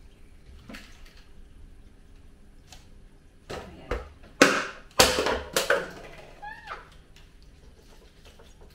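Water splashing at a kitchen sink as a glass vase is emptied and refilled with fresh water, with several loud splashes in the middle, then a short squeak.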